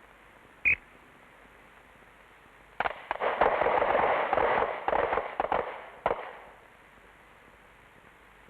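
Several handguns fired together in rapid, overlapping shots for about three seconds. The shots begin a couple of seconds after a brief high tone.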